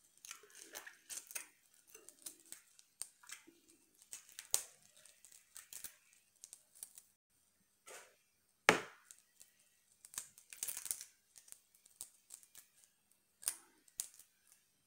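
Boiled shrimp being peeled by hand: the shell crackles, tears and snaps in a scattered run of small sharp sounds, with one louder crack about nine seconds in.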